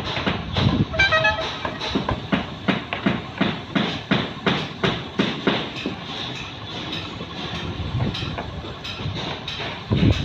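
Rapid irregular knocking and clattering, about two to three knocks a second, with a short high-pitched tone about a second in.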